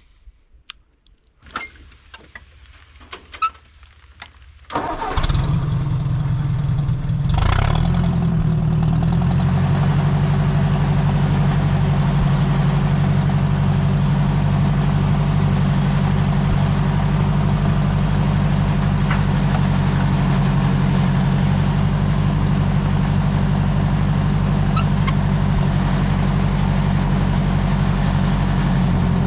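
1959 Ford 641 tractor's four-cylinder engine started from cold: a few small clicks, then the engine catches about five seconds in, picks up briefly a couple of seconds later, and settles into steady running.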